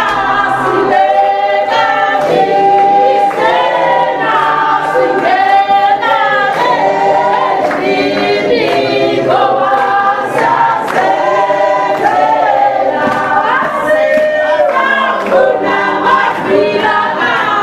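A crowd singing together in chorus, unaccompanied, with hand clapping keeping a steady beat.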